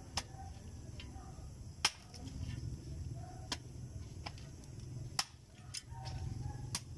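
A spade digging into soil at the base of snake plants: about six sharp, irregular strikes, the loudest a little under two seconds in, over a low steady rumble.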